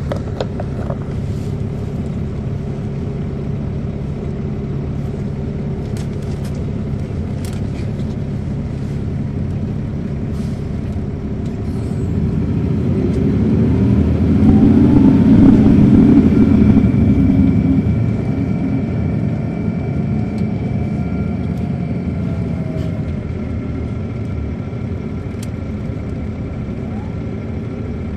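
Caterpillar C13 ACERT diesel engine of an MCI D4500CL coach, heard from inside the cabin: a steady low drone that grows louder about halfway through as the engine pulls, peaks, then eases back. Light rattles and clicks early on, and a faint steady high whine in the latter part.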